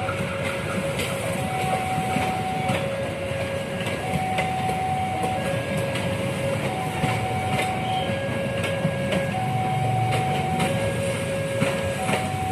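Level-crossing warning alarm sounding two alternating tones, high then low, each held for a little over a second. Under it, passenger carriages roll past at a crawl with the wheels knocking irregularly over the rail joints. The train is held slow by a speed restriction for rail and sleeper renewal.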